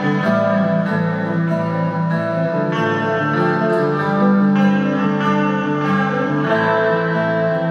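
Live band playing an instrumental passage with no singing: plucked strings over held, droning chords that change every second or so.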